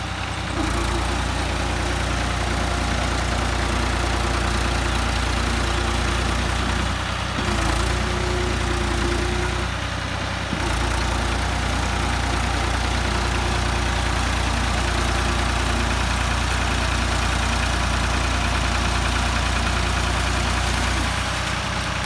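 Tractor diesel engine running steadily as the tractor works through flooded paddy-field mud, its note changing briefly about seven and ten seconds in.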